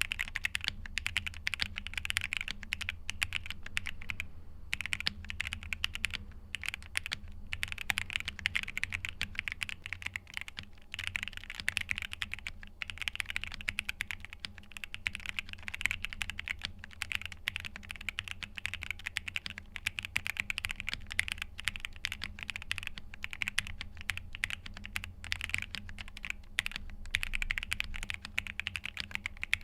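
Fast, continuous typing on a KBDfans Taco 75 mechanical keyboard with Gateron Pro 3.0 Yellow linear switches and PBT keycaps: a dense, uneven stream of keystroke clicks with a few brief pauses.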